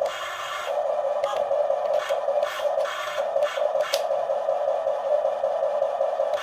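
Radio-controlled toy construction machine's small electric motors and plastic gearboxes whining, swelling and dipping as the controls are worked, with scattered sharp clicks and scrapes.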